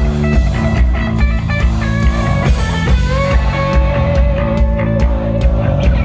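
Live rock band playing at full volume, with electric guitars over a steady bass and drum beat, heard from within the crowd; a long note is held from about halfway through.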